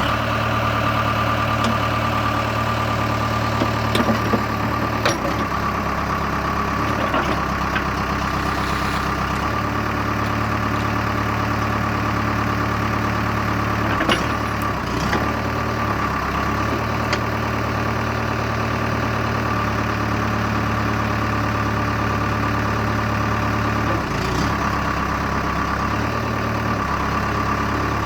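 1998 Case 580L backhoe loader's diesel engine running steadily at idle, with a few sharp metallic knocks and clunks scattered through.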